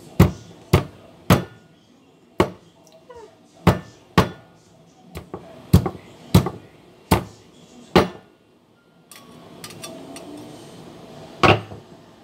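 About ten sharp knocks of a hard object struck down on a hard surface, unevenly spaced half a second to a second apart. A quieter stretch with a few faint clicks follows, then one more loud knock near the end.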